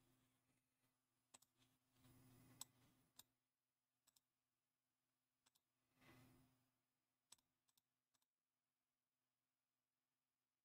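Near silence: faint room tone with a low steady hum and a few scattered faint clicks, the clearest about two and a half seconds in.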